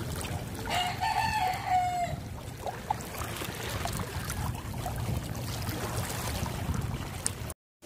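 A rooster crowing once, about a second in, one call lasting about a second and a half, over a steady low rumble.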